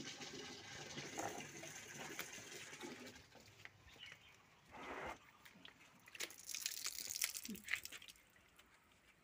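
Faint water sounds of shoe washing on wet concrete: a soapy cloth scrubbing a shoe with a steady wet hiss, then a short splash about five seconds in and a patter of drips and splashes from a wall tap near the end.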